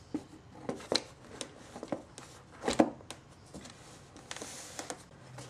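Handling noise from a Victor two-spring wind-up phonograph motor being turned and shifted on its motor board by gloved hands: a string of scattered light metal knocks and clinks, the loudest a little before halfway.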